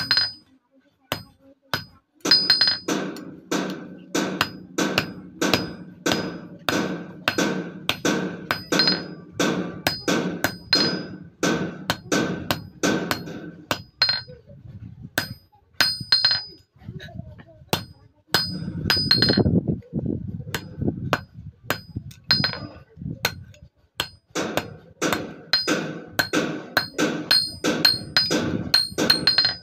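Small hammer striking a thin steel sickle blade cold on a steel anvil, a steady run of ringing metallic taps at about two to three a second, with a couple of short breaks.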